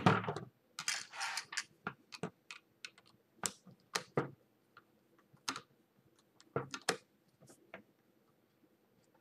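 Irregular clicks and light knocks as an AMB router spindle's housing is handled and a Torx screwdriver is worked on its housing screws, with a louder knock right at the start.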